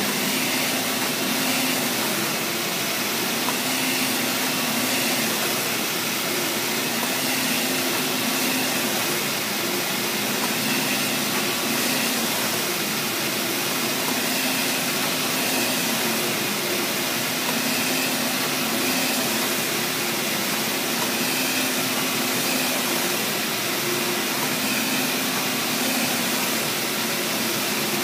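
Large-format swissQprint UV flatbed printer running: a steady whirring hiss with a low hum that swells and eases every two to three seconds.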